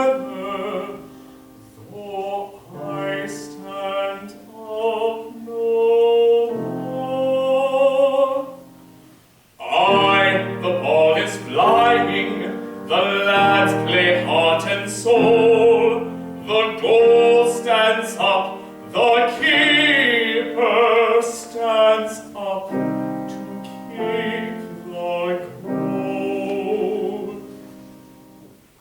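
Classical English art song: a trained solo voice singing with vibrato over piano accompaniment. A soft opening passage breaks off briefly about a third of the way in, then the voice and piano come in louder and fuller before tapering off near the end.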